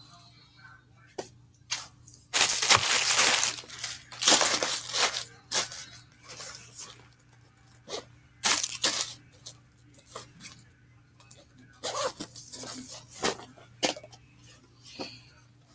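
Bags and packed items being handled, rustling and crinkling in irregular bursts, the longest about two to three seconds in and more around four, eight and a half and twelve seconds in.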